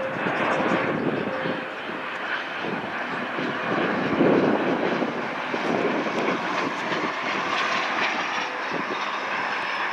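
Jet airliner engines heard from the ground as a plane passes: a steady rushing noise with faint thin whining tones.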